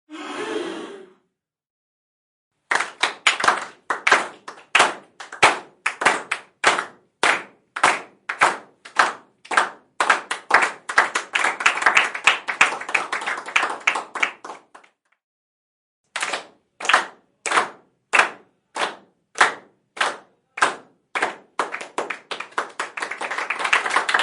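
Small crowd clapping in unison, about two claps a second. It opens with a short burst of crowd noise. The clapping breaks off for a moment, starts again and dissolves into continuous applause near the end.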